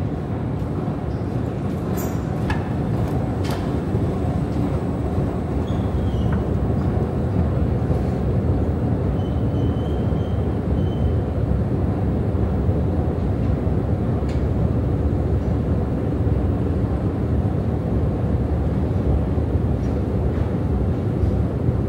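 Long subway-station escalator running, heard while riding it: a steady low rumble and hum from the moving steps and drive. It grows a little louder over the first few seconds, with a few sharp clicks near the start.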